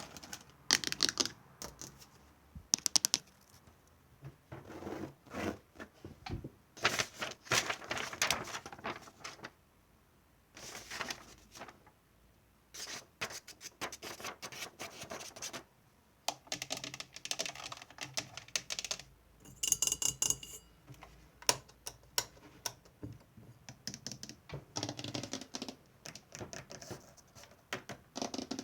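ASMR tapping and scratching: rapid clicks and scratches in bursts of a second or two, with short pauses between.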